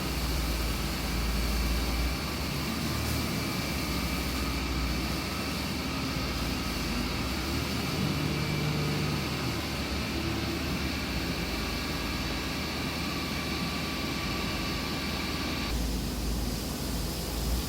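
A machine running steadily, a hum with a high whine; the whine drops out about 16 seconds in.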